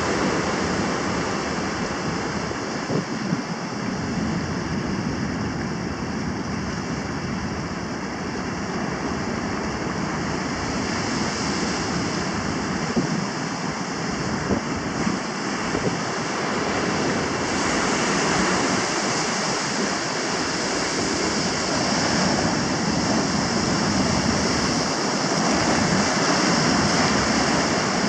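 Ocean surf breaking and washing up the beach: a continuous steady rush of water that swells a little louder in the second half.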